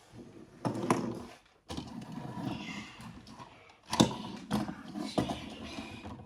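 Fight sound effects in a series of about five sudden, noisy roaring bursts, each fading off before the next.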